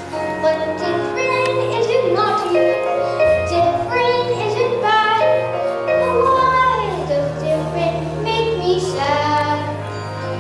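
Children singing a musical number over instrumental accompaniment, with held bass notes beneath the voices.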